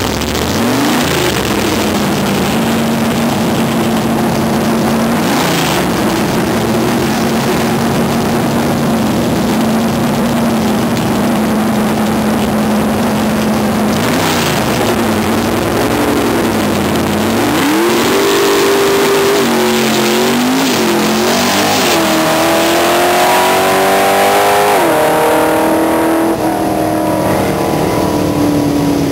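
Drag-racing mini pickup's engine held at one steady pitch as the truck rolls up to the line, then revving and launching down the strip, its pitch climbing in steps with drops at the gear changes before it eases off into the distance.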